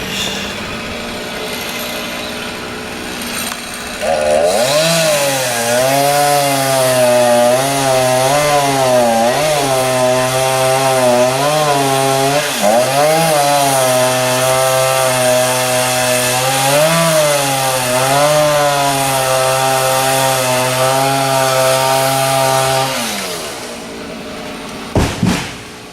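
Chainsaw revved up about four seconds in and cutting wood, its pitch dipping and recovering again and again as it loads in the cut, then winding down and stopping a few seconds before the end.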